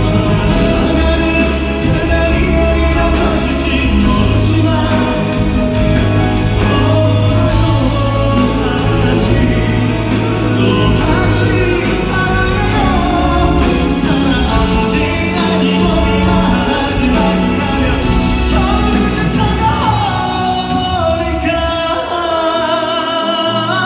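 Live performance of a pop ballad in a large hall: a band plays, with singing over it and a sustained melody line.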